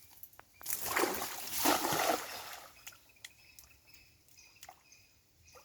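Water splashing in a burst of about two seconds starting just under a second in, then fading to a faint trickle.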